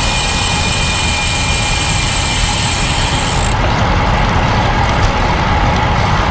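Wind buffeting the microphone and road-bike tyre noise while riding, a steady loud rush with heavy low rumble. A thin high whine over it cuts off about three and a half seconds in.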